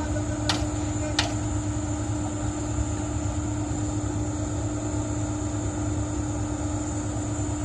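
Komatsu PC270 hydraulic excavator running steadily, a constant engine drone with a steady hum, as its bucket holds against a GRP pipe being fitted. Two sharp clicks sound about half a second and a second in.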